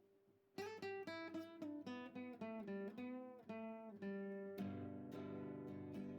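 Background music on acoustic guitar. After a brief pause, a quick run of plucked notes starts about half a second in, then fuller strummed chords ring from about two-thirds of the way through.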